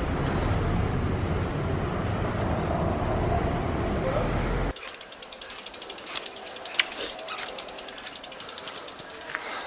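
Steady rushing wind and road noise on the microphone while moving along a street. About halfway through it cuts to the quieter, rapid, even clicking of a Kona Sutra touring bike's rear freewheel ratchet as the bike is pushed uphill without pedalling, with a few louder clicks.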